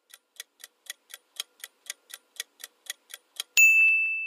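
Quiz countdown-timer sound effect: clock-like ticking, about four ticks a second, while the time to answer runs out. About three and a half seconds in it ends in a loud ringing ding, the signal that time is up.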